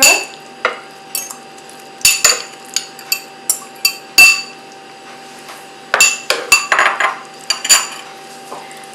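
A metal utensil clinks and scrapes against a cooking pan as pineapple is added to the curry and stirred in. The sharp, ringing clinks come in irregular clusters, over a faint steady hum.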